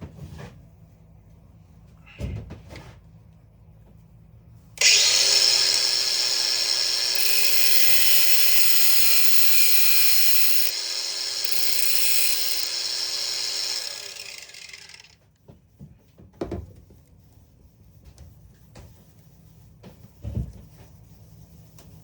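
A handheld power tool starts about five seconds in, runs steadily under load for about nine seconds, then winds down. A few knocks and clicks come before and after it.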